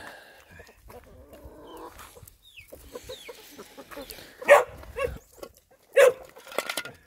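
Chickens clucking and calling while being fed, faint at first, then a few short, loud calls in the second half.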